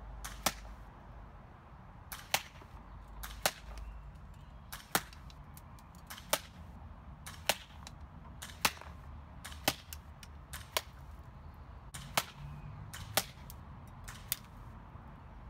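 A GHK M4 gas-blowback airsoft rifle, its nozzle retuned to about 380–390 FPS, fired in single shots at a steady pace, about a dozen sharp cracks roughly one a second, with BBs striking a paper target on a cardboard box.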